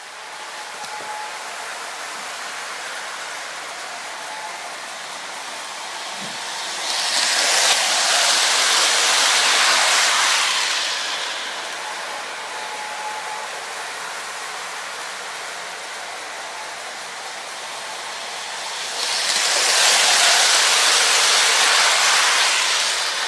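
Lionel O-gauge model train running on plastic-roadbed track, a steady rolling rumble of wheels and motor that grows much louder twice as the train passes close by on successive laps.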